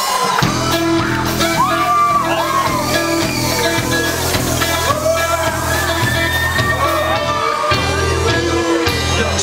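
Live band playing a song's intro: bass and drums come in about half a second in under a steady groove, with crowd voices shouting and whooping over the music.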